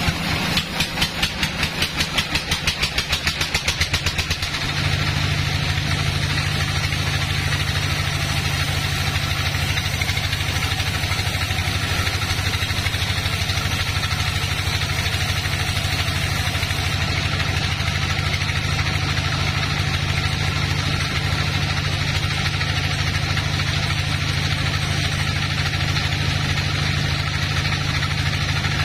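Band sawmill running with a steady mechanical hum. For about the first four seconds it pulses rhythmically, about four beats a second, then it settles into an even, continuous drone.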